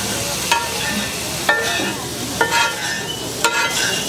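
A metal spatula strikes and scrapes a tawa (flat griddle) four times, about a second apart, each clank ringing briefly. Under it is the steady sizzle of mutton frying in desi ghee with onion and ginger.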